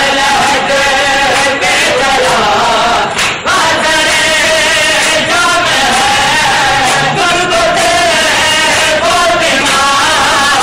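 Men chanting a noha together in a loud, steady mourning chant, with the slaps of hands striking bare chests in matam.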